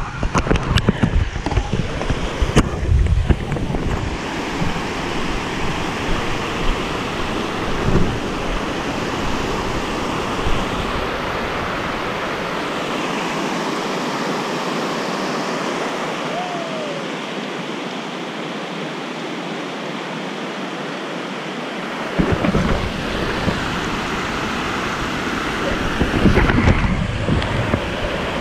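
Mountain creek rushing steadily over rocks and small cascades. Low rumbling bumps hit the microphone in the first few seconds and again near the end.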